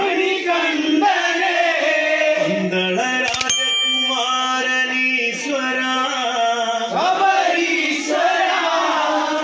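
Men singing a Kavadi chinthu, a Kerala folk devotional song to Murugan, in long held, ornamented notes. A brief cluster of sharp strokes comes about three seconds in.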